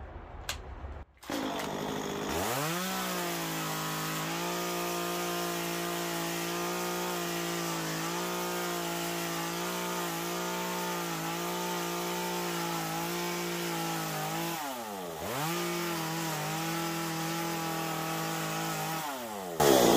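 Chainsaw revving up about two seconds in and running steadily at high speed while making an angled undercut into Western Red Cedar. Near fifteen seconds it briefly slows and picks back up, and it winds down near the end.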